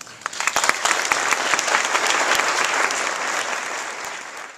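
Audience applauding, many hands clapping, building quickly to a steady level about half a second in.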